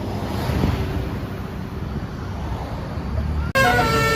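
Street traffic with a low vehicle rumble passing. About three and a half seconds in, after a sudden break, a bus's basuri multi-tone telolet air horn starts playing a stepping tune, loud.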